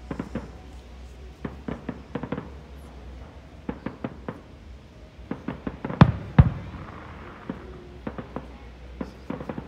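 Fireworks shells bursting in an irregular string of sharp bangs and pops, the two loudest close together about six seconds in.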